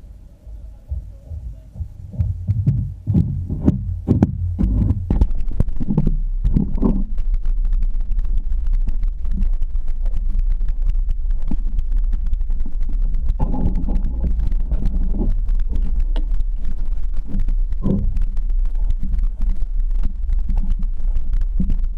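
Muffled low rumble with many small knocks and thuds, picked up through a GoPro's sealed waterproof housing as it is jostled and buffeted. A cluster of louder thumps comes about 2 to 7 seconds in, and another about two-thirds of the way through.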